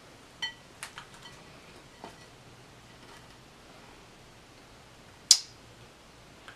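Finger snapping: a few light snaps and clicks in the first two seconds, then one loud, sharp snap about five seconds in.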